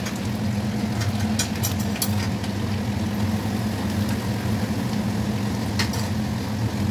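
Chopped garlic and ginger sizzling in hot oil in a metal kadai, with a few clicks of a spatula against the pan, over a steady low hum.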